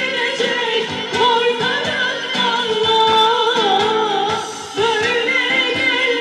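Women singing a Turkish folk-rock song into microphones, backed by a live band of violin, bağlama and keyboard over a steady beat.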